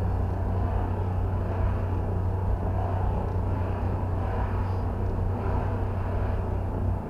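Audi TT engine running with a large vacuum leak (both intake-manifold caps off), giving a steady low rumble.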